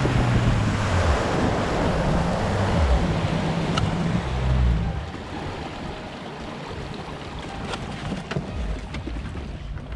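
Bass boat's outboard motor running under way, with water rushing past the hull and wind on the microphone. About halfway through, the engine note drops away and the sound falls quieter, leaving water splashing and wind as the boat slows.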